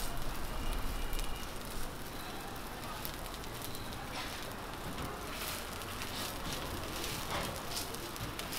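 Sorghum pancakes (susubukkumi) sizzling in oil on a flat steel griddle, a steady crackling hiss.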